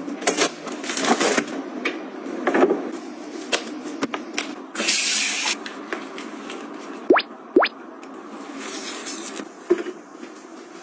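Close handling sounds of objects and packaging: scattered clicks and taps with bursts of rustling, and two quick rising 'bloop' pops about seven seconds in.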